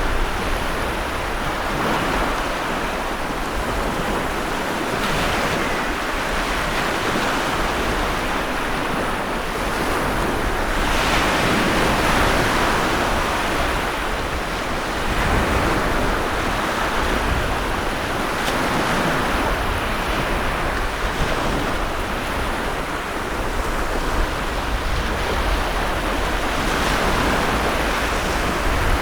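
Heavy sea waves breaking and washing in a storm, a continuous rushing surf that swells and eases every few seconds, with wind.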